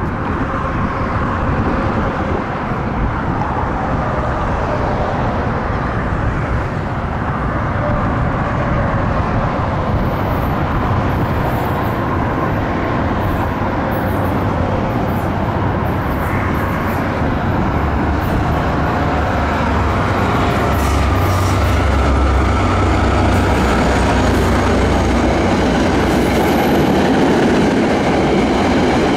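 An NJ Transit passenger train led by a GP40PH-2B diesel locomotive, with its EMD 16-cylinder two-stroke engine, approaching and passing. The engine's deep drone is strongest about two-thirds of the way in. Steel wheels click on the rails as the coaches roll by near the end.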